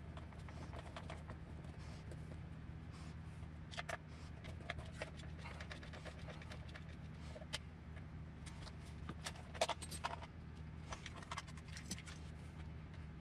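Faint clicks, taps and light rattles of plastic RC car parts and small screws being handled on a work mat, over a steady low hum.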